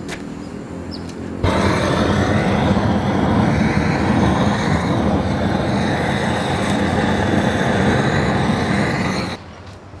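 Handheld gas torch burning on the kindling to light a campfire: a loud, steady hiss that starts suddenly about a second and a half in and cuts off suddenly near the end.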